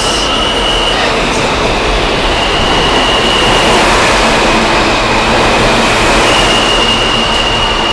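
A New York City Subway E train pulls into an underground station and its cars run past along the platform, with a loud, steady rumble of steel wheels on rail. A thin, high squeal comes and goes three times.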